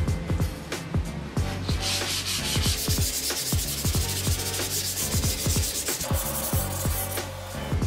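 Wet abrasive rubbing stone scrubbed back and forth along the edge of a ceramic tile, a gritty scraping from about two seconds in until about six seconds in, smoothing the tile's edge. Background music with a steady beat plays throughout.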